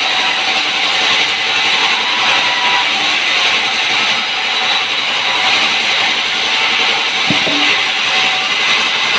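Sawmill machinery running, a loud, steady noise with a brief knock about seven seconds in.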